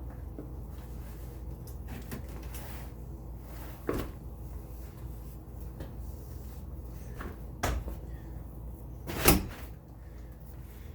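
Three sharp knocks and clicks of a Radio Flyer folding wagon's frame being unfolded and handled, about four, eight and nine seconds in. The last knock is the loudest.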